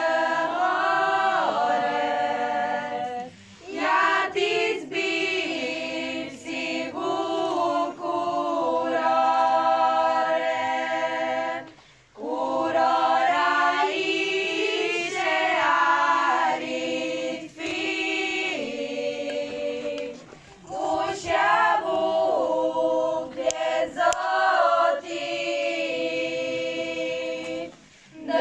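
A choir of young women singing a cappella from song sheets, in long held phrases broken by short pauses about every eight seconds.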